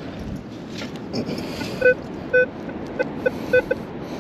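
Metal detector sounding a target: short repeated beeps, sparse at first and coming in a quick run over the second half as the coil sweeps back and forth over the spot, over a steady rush of wind and surf.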